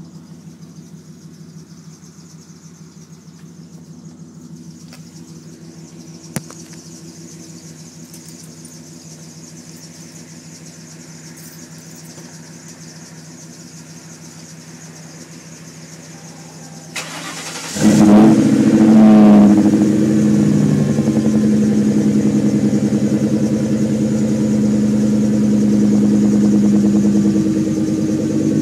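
2000 Mercury Grand Marquis 4.6-litre V8 with Flowmaster single-chamber mufflers on dual exhaust starting up about 17 seconds in: a brief crank, a quick rev as it catches, then a deep, steady idle. Before the start there is only a faint, steady low hum.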